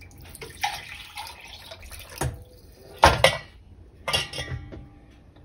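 Wooden spatula working in a steel pot of water-thinned dal: liquid sloshing, with several sharp knocks against the pot, the loudest about three seconds in.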